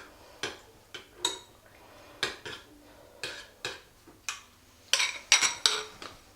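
A spoon clinking and scraping against a bowl while stirring a marinade of olive oil, vinegar, basil and garlic. It makes a series of irregular sharp clinks, with a quick cluster of the loudest about five seconds in.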